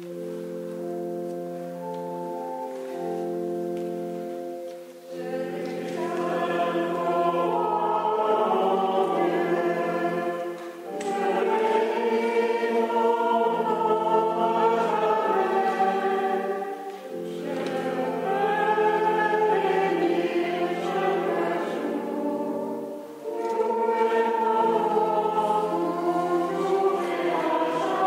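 A hymn: held, steady chords for about five seconds, then voices singing over the held accompaniment in phrases of about six seconds each, with short breaths between them.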